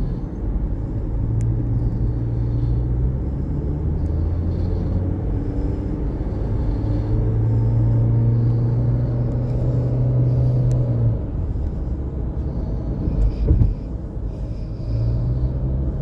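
Steady low drone of tyre and engine noise heard inside the cabin of a moving Honda car at highway speed, with a short thump near the end.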